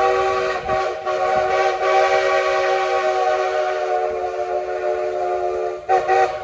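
Steam whistle of 1907 Baldwin 0-6-0 steam locomotive No. 58, sounding one long blast of several notes at once, followed near the end by a short second blast.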